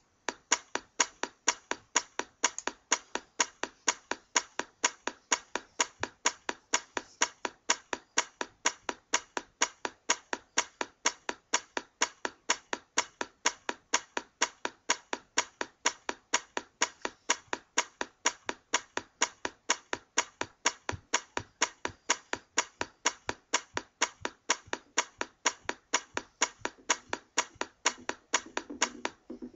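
Sharp clicks at a steady, machine-even beat, about three a second, with nothing else under them.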